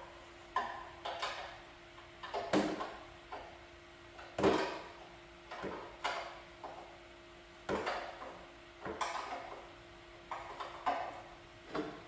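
Hand tools clicking and clinking against metal at the oil pan, a dozen or so short sharp strikes at irregular intervals, each ringing briefly. A faint steady electrical hum runs underneath.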